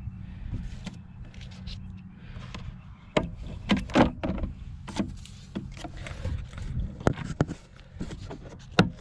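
Hard plastic parts of a fishing kayak being handled, clacking and knocking: a run of sharp knocks starts about three seconds in, with a single loud clack near the end, over a low steady rumble.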